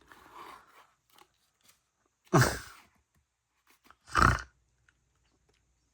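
A man's voice: two short, wordless groans of dismay, the second about two seconds after the first, with faint rustling at the start.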